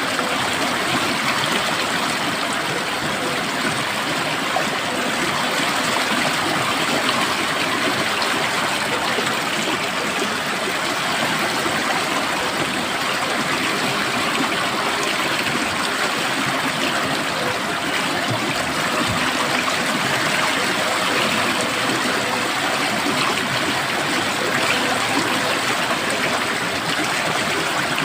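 Flowing water running steadily: a stream rushing and gurgling over stones, with an even, unbroken level.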